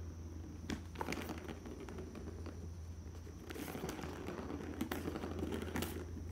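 A kitten playing: light rustling and crinkling with scattered sharp clicks and taps, over a steady low hum.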